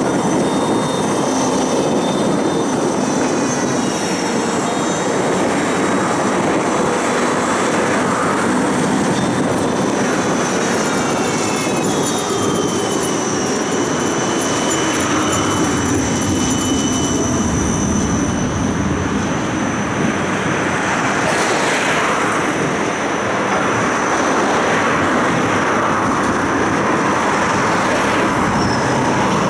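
Tram running on street track: steady rolling noise of wheels on the rails, with a high electric whine from the traction equipment that glides in pitch as the tram pulls away and changes speed.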